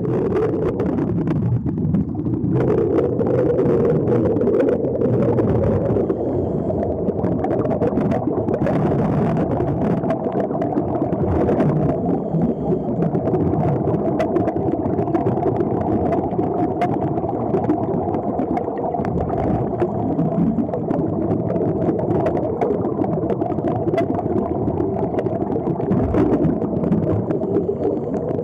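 Continuous underwater gurgling and rushing of air bubbles streaming out of the open-bottomed air helmets of sea walkers, heard through an underwater camera, with a steady drone running underneath.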